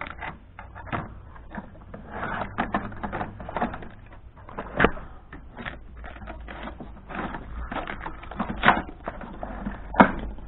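Small hand tools being rummaged through, picked up and set down in a toolbox drawer: irregular clinks, rattles and knocks, with a few louder knocks about five seconds in, near nine seconds and near the end.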